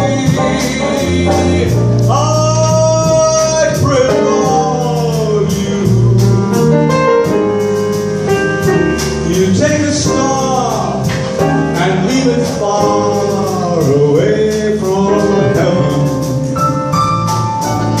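A man singing a slow bolero into a microphone, holding long notes with vibrato, backed live by piano, upright bass and drums.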